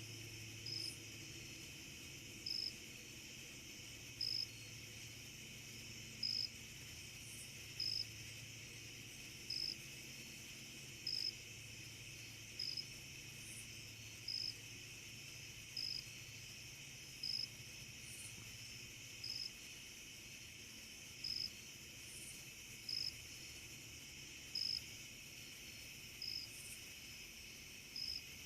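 Night insects: a steady high chorus, with one insect giving a short loud chirp about every second and a half to two seconds. A faint low steady hum lies underneath.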